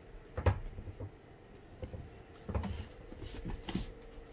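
Kittens scuffling and pouncing on a wooden floor: about three soft thumps and knocks over a faint steady hum.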